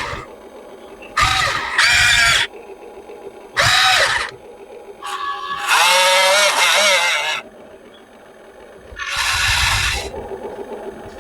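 Electric drive motors and gearboxes of a Huina RC excavator whining in about six short bursts, each rising and then falling in pitch as a motor spins up and stops.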